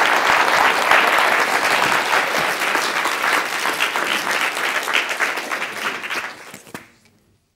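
Audience applauding, many hands clapping at once, the applause tapering off over the last couple of seconds.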